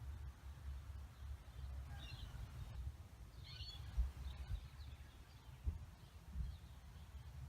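Wind rumbling on the microphone, with a few low thumps, the sharpest about four seconds in. Faint bird chirps come through twice in the first half.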